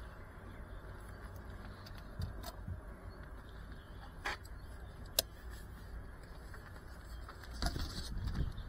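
Faint roadside ambience with a low steady rumble of traffic, broken by a few sharp clicks from handling FPV goggles and a radio controller. Near the end come louder bumps and rustling as the drone is picked up and handled.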